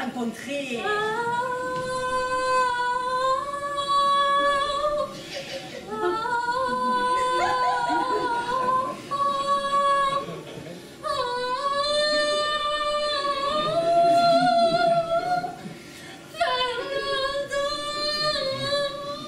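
A woman singing wordless long held notes, unaccompanied, in four long phrases. Each phrase swoops up into the note and then holds it, with a wavering pitch and short breaks between phrases.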